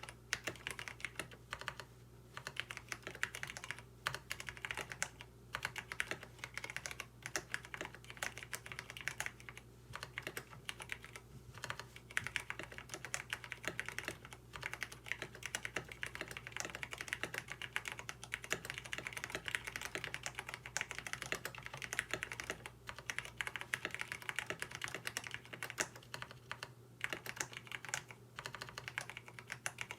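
Continuous fast typing on a KBD67 Lite mechanical keyboard with lubed Cherry MX Brown tactile switches and a PE foam mod, dense keystroke clacks with brief pauses. Without switch films, the switches are scratchy and add a rattling "tic" from stem wobble.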